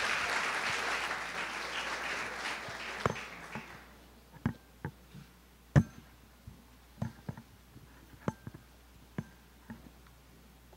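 Audience applause fading out over the first four seconds. Then a string of separate sharp knocks and clicks, the loudest about six seconds in, as the candlesticks are handled and lifted out of their box on the wooden lectern.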